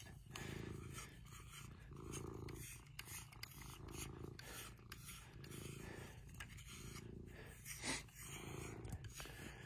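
Domestic cat purring steadily, the purr swelling and easing with its breaths, while a silicone grooming brush rubs softly through its fur. A brief louder sound comes about eight seconds in.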